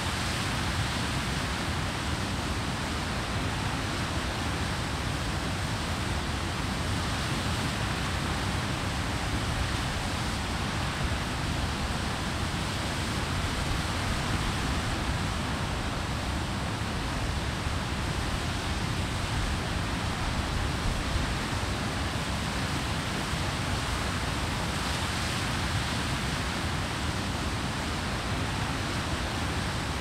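Water pouring over a weir: a steady, unchanging rush of falling water.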